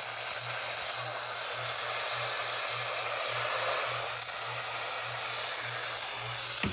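Radio receiver putting out static hiss, cut off sharply in the highs, over a low hum that pulses about three times a second; a click sounds near the end.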